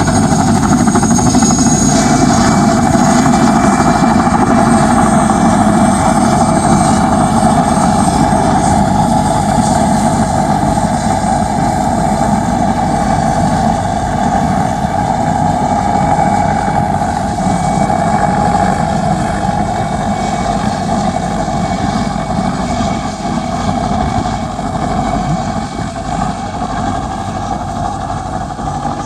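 Mil Mi-2 helicopter's twin turboshaft engines and main rotor running steadily and loudly, easing slightly in level over the last third.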